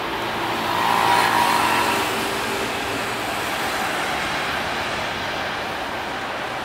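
Jet airliner engines running, loudest about a second in and then slowly easing off as the aircraft passes.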